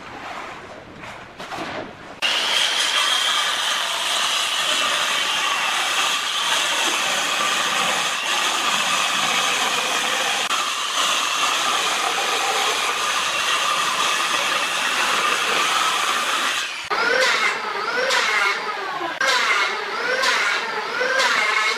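A few light knocks as a hardwood board is handled, then a handheld circular saw cutting along a hardwood stair tread, running steadily with a high whine for about fourteen seconds. Near the end, an electric hand planer makes several short passes over the board, its pitch dipping and rising with each pass.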